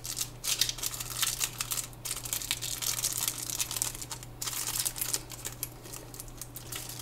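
Clear plastic packet crinkling and rustling in the hands as it is opened: a run of irregular crackles that thins out near the end.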